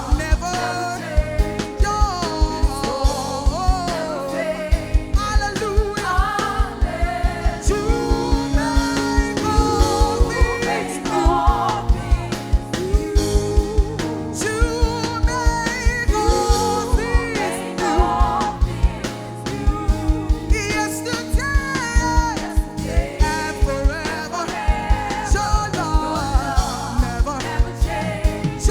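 Live gospel worship band playing with singing over it: a steady kick-drum beat under held keyboard chords and bass.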